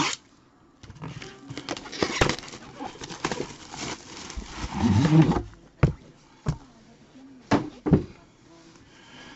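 Hands opening a sealed trading-card box: rustling of plastic and cardboard with several sharp clicks and snaps. A brief low vocal sound about five seconds in.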